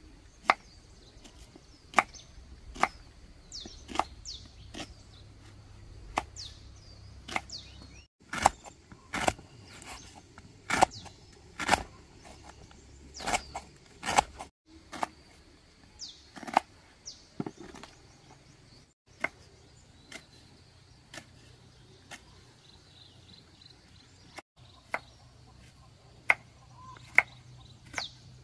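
Knife chopping green bananas into slices on a wooden cutting board: sharp knocks of the blade striking through into the board, irregular, about one a second with some quick pairs.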